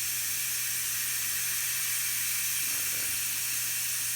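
Air hissing steadily out of a tire's open valve stem with the Schrader valve core removed: the tire deflating.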